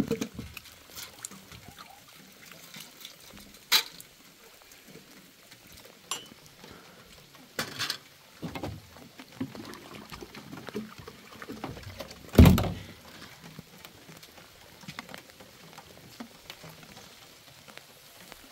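Water poured from a plastic jug into a glass at the start, then scattered clinks and knocks of dishes and plastic water containers being handled, with one loud low thump about twelve seconds in.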